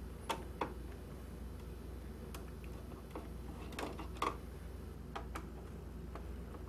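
Light, irregular clicks and taps of a small Phillips screwdriver's tip against a projector's plastic case and vent grille, about eight in all, the loudest about four seconds in, over a low steady hum.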